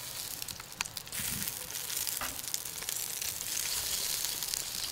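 Cooking oil sizzling lightly in a hot pot over a wood fire, with a few scattered pops, the oil heating on the browned bits left from searing the meat.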